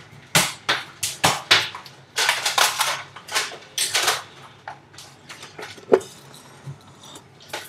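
A rapid, irregular run of sharp clicks and clatters of hard objects being handled, thinning out after about four seconds.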